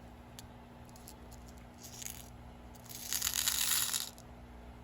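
A small packet of metal tube beads being handled: a few light clicks, a brief rustle, then a louder crinkling rattle lasting about a second, near the end.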